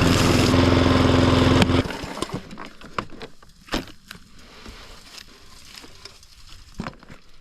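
Riding tractor mower's engine running steadily, then shut off less than two seconds in. A few light knocks and clicks follow in the quiet.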